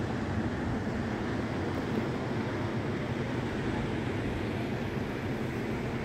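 Steady rushing noise of wind and sea surf at an even level, with no distinct events.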